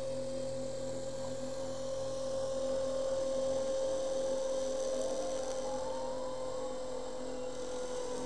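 Spindle motor of a DIY Arduino CNC mill running with a steady whine as its small end mill cuts a groove through cardboard. Fainter whines from the stepper motors glide up and down in pitch as the cutting head changes speed along the curve.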